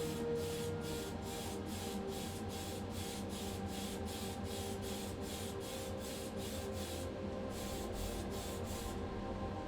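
Background music: steady held tones under a fast, even beat of about three high hissing pulses a second, which drops out briefly twice near the end.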